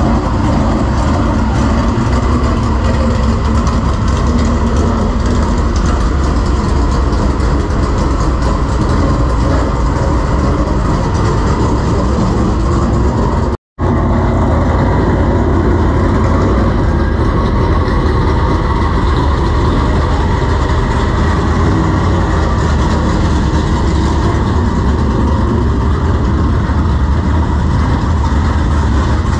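Dirt super late model race cars' V8 engines running loudly at low speed as the cars creep across the scales, a steady dense engine sound. About 14 seconds in it cuts out for an instant and resumes on another car.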